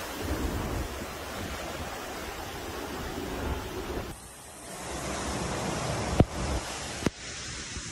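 Hurricane wind and rain, a steady noisy rush with wind buffeting the phone microphone. The sound changes about four seconds in, and two sharp clicks come near the end.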